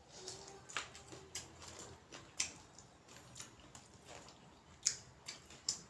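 A person chewing food close to the microphone: irregular wet mouth smacks and clicks, about one or two a second.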